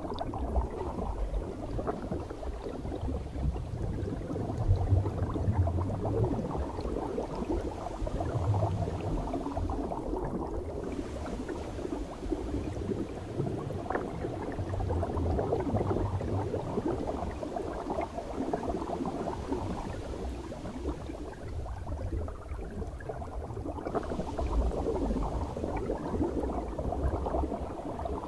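Air bubbling out of helmet-diving helmets, heard underwater: a dense, muffled bubbling and gurgling, with low rumbles that swell and fade.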